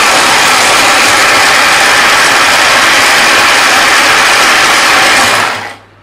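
Small electric mini chopper motor running steadily as it blends semolina and water into a batter, then switched off and winding down quickly about five and a half seconds in.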